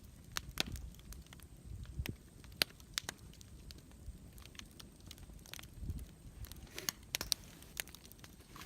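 Wood campfire crackling, with irregular sharp pops and snaps scattered over a faint low rumble of the flames.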